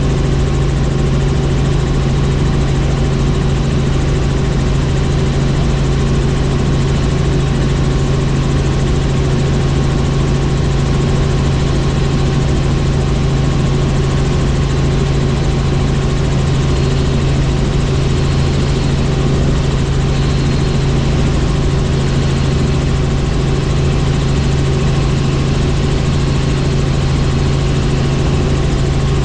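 Helicopter in flight: a loud, steady drone of rotor and turbine with a strong low hum that does not change.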